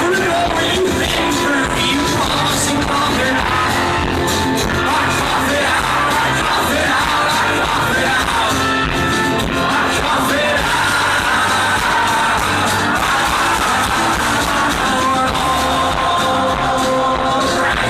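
Live rock band playing loudly and without a break: guitars and drums, with a voice singing over them.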